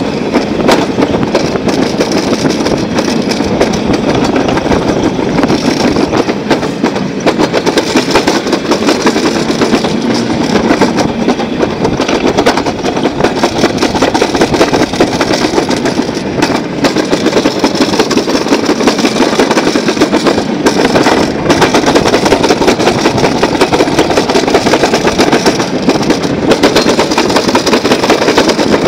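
Summer toboggan sled running fast down a metal trough track: a loud, continuous rattling rumble of the sled in the channel.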